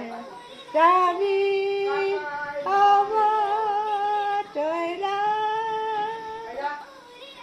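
An elderly woman singing unaccompanied, holding long steady notes in three phrases with short breaks between them.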